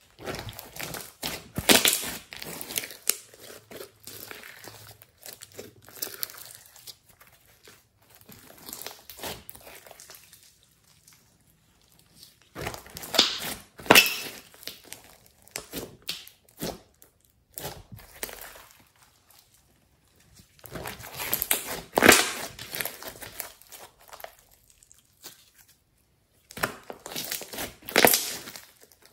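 Hands squeezing and pressing a large mass of thick slime, trapped air crackling and popping through it in bursts with quiet pauses between.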